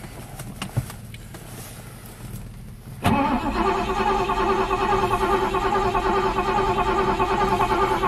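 A Rover P6's engine being cranked over on the starter motor: a few light clicks, then about three seconds in a sudden, steady whirring chug that keeps on without the engine catching.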